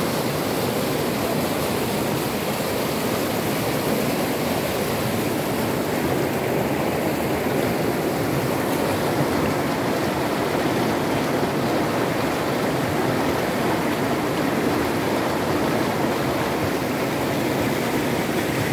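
Mountain river rushing through shallow rapids over stones, a steady rush of churning water.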